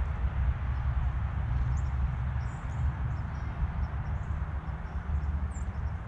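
Wind buffeting an outdoor action camera's microphone in an uneven low rumble over a steady hiss, with a few faint, short, high bird chips.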